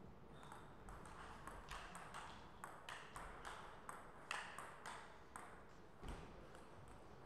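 Table tennis rally: the ball clicks sharply off the players' bats and the table, about fifteen quick pings over some five seconds, stopping a little after five seconds in. A single dull low thump follows about a second later.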